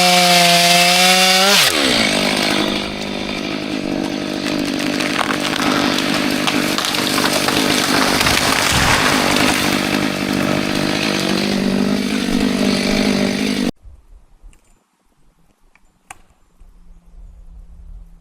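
Chainsaw running at high revs, dropping sharply in pitch about two seconds in and going on as a rough, noisy sound of the chain working through wood. It cuts off suddenly near the end, leaving a much quieter stretch with a couple of faint clicks.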